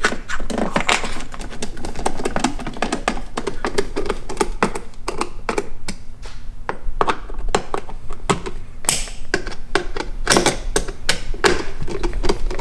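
Irregular rapid clicks and taps of a screwdriver and hands working on a plastic car door panel, screws being driven plastic into plastic.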